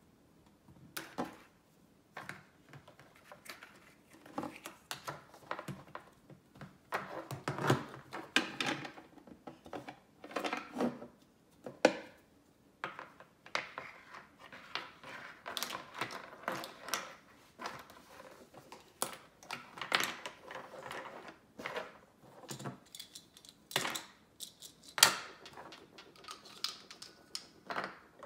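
Hard plastic toy parts clicking and clattering on a wooden table as they are handled, closed up and set down, in irregular knocks and clicks.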